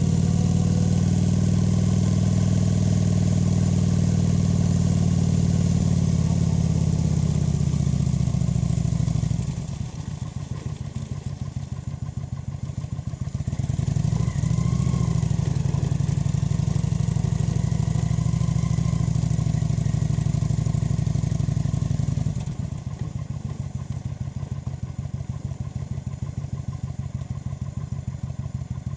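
Kawasaki VN 900's V-twin engine running under steady throttle. About ten seconds in it drops to a lower, pulsing beat, pulls again after about fourteen seconds, then falls back to the lower pulsing beat for the last seven seconds.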